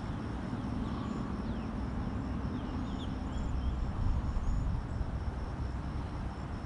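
Wind rumbling on the microphone beside a pond, with birds chirping now and then and a steady pulsing insect trill in the background.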